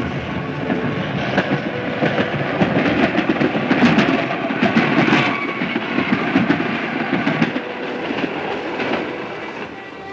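Electric commuter train passing close by, its wheels clattering over the rail joints. The sound builds to a peak about four to five seconds in, then fades away near the end as the train moves off.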